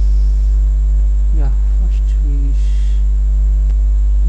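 Steady electrical mains hum with a stack of overtones, loud and unbroken beneath the narration, the sign of interference on the microphone recording. A short soft hiss comes a little past halfway.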